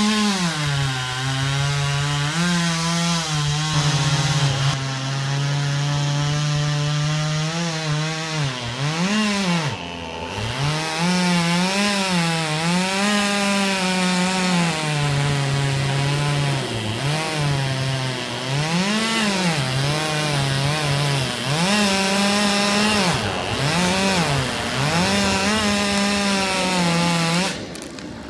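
Stihl MS200T top-handle two-stroke chainsaw cutting through the trunk of a sweet gum at its base. The engine pitch keeps dropping as the chain bites and rising again as it is throttled. The saw cuts off near the end.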